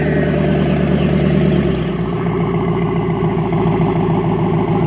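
Car engines running at a drag strip. About two seconds in, a Cadillac CTS sedan's engine is heard idling up close with a steady, pulsing beat.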